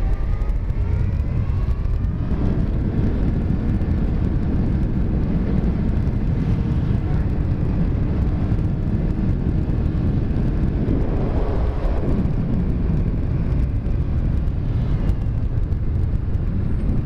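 Yamaha FZ1's inline-four engine running on the move, with heavy wind rumble on the helmet-mounted microphone. The engine note rises as the bike accelerates near the start.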